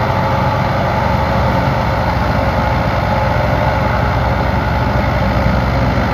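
A 1994 Fiat 640 tractor's four-cylinder diesel engine runs steadily under load, driving a wheat thresher. The engine's even low running is mixed with the steady hum of the threshing machine.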